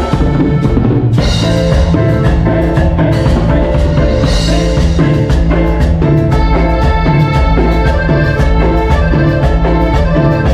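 A cumbia band playing live, with a steady danceable beat over bass, percussion and pitched melody, picked up by a camera's built-in microphone.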